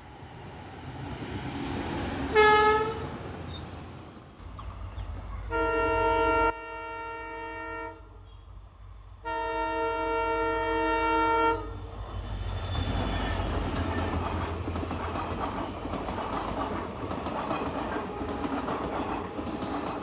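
Indian Railways trains sounding their horns: an approaching electric locomotive gives one short blast about two seconds in, then a diesel locomotive sounds two long multi-tone blasts, the second about two seconds long. After that comes the steady rumble and clatter of passenger coaches passing close.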